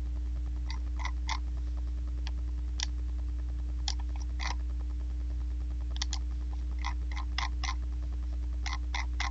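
Scattered computer clicks, often in quick twos or threes, over a steady low hum.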